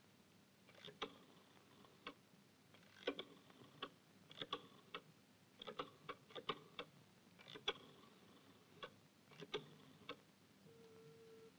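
Rotary telephone being dialled: irregular runs of sharp clicks as the dial is wound round and spins back, digit after digit. A steady tone comes on near the end.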